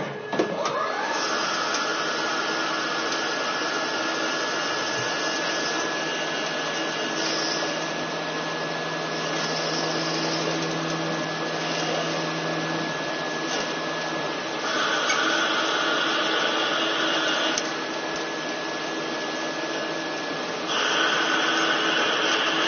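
CNC lathe turning a metal shaft: a steady machine whir with a constant high tone. About two-thirds of the way through, and again near the end, it gets louder and higher-pitched as the tool takes a cut.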